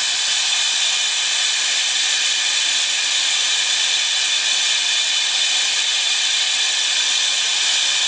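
Compressed-air-powered Mighty Vac vacuum brake bleeder hissing steadily as it draws brake fluid out through the rear caliper's bleeder into its canister.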